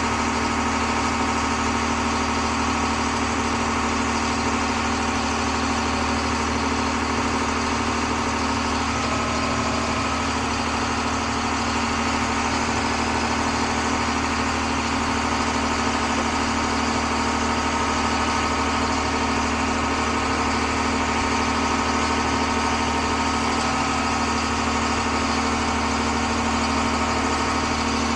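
Large farm machine's diesel engine running at a steady speed: a constant drone with a high whine over it that does not change.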